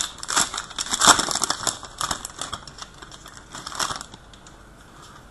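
Crinkling and crackling of a foil trading-card pack wrapper as cards are handled, with many small sharp ticks, stopping about four seconds in.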